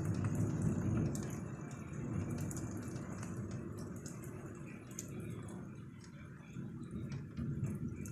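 Raindrops dripping and ticking during a thunderstorm, over a low rumble of thunder that fades away over the first several seconds.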